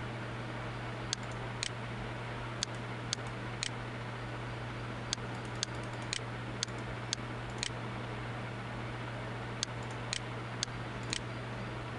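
Computer mouse button clicking: about sixteen short, sharp clicks, mostly in pairs about half a second apart, over a steady low hum and hiss.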